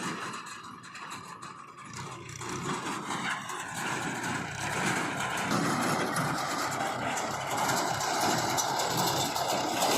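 Heavy diesel engine of the working machinery running, growing louder about two seconds in and then holding steady.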